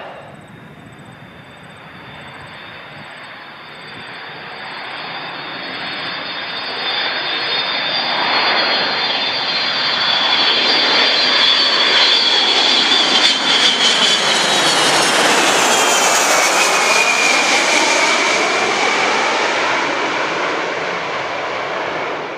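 US Air Force KC-135R Stratotanker's four CFM56 turbofans on a low landing approach. The jet noise swells as the aircraft comes in and stays loud as it passes close by, and a high engine whine drops in pitch about fifteen seconds in as it goes past.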